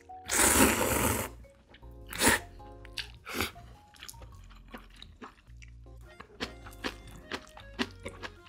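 A long, loud slurp of thin wheat noodles (somyeon) from a bowl of broth about half a second in, followed by a few shorter eating sounds and small clicks, over soft background music.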